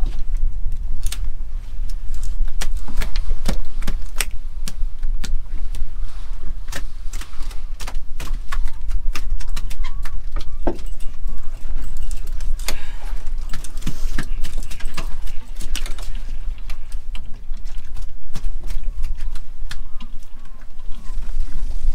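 Working deck of a cod jig boat: a steady low engine rumble under irregular sharp clicks and knocks from the jigging gear and fish on the aluminium deck.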